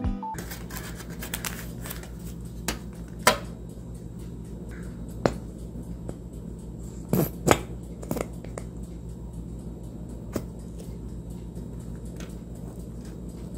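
Scattered clicks and taps as a plastic squeeze bottle is handled and squeezed and a spoon works over bread on a metal baking tray. A steady low hum runs underneath.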